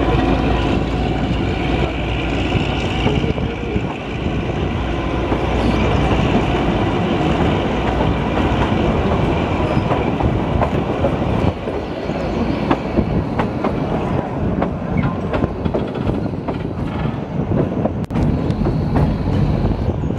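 Kalka–Shimla narrow-gauge toy train running, heard from aboard: the coaches rumble steadily with many small clicks and knocks of the wheels over the track.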